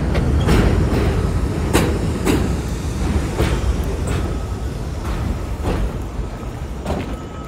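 R68 subway train pulling into an elevated station: a low rumble with sharp clicks of wheels over rail joints. The clicks come further apart and the sound fades as the train slows to a stop.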